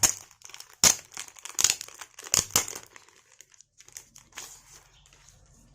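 Wrapping of a pre-order benefit being torn open and crinkled by hand: a run of sharp rips and rustles over the first three seconds, then fainter handling.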